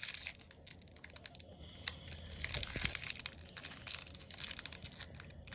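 Foil wrapper of a Pokémon trading card booster pack crinkling and tearing as it is pulled open by hand, in short irregular crackles.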